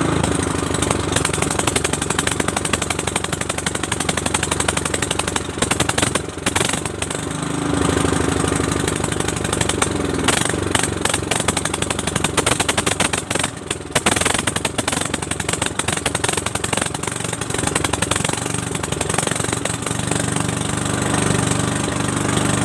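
Small petrol generator engine, long unused, running with a fast, even firing beat. It dips briefly twice, about six and thirteen seconds in.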